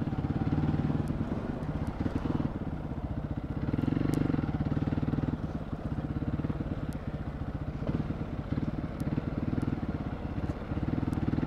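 Hero XPulse 200 single-cylinder motorcycle engine running at low revs as the bike rolls slowly along, its note swelling slightly a few times.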